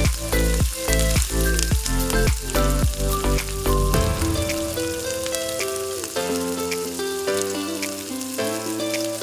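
Food sizzling and crackling as it fries in a pan, under background music. The music has a beat with deep bass hits for about the first four seconds, then turns to a melody of held notes.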